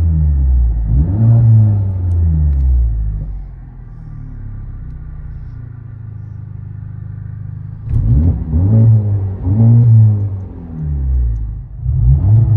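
Honda Civic Type R's turbocharged four-cylinder engine, fitted with a Remark Ti cat-back exhaust, heard from inside the cabin. It revs up hard in pulls, with the pitch rising and dropping at each shift. It settles to a quieter, steady cruise in the middle, then revs hard again from about eight seconds in.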